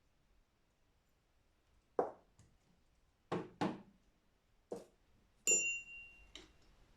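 A series of about six hard knocks and taps from espresso puck-preparation tools being handled on the portafilter, starting about two seconds in. One near the end rings out with a bright metallic clink.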